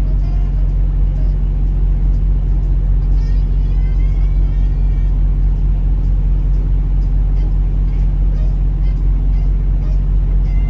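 Semi-truck diesel engine idling steadily, a constant low rumble heard from inside the cab.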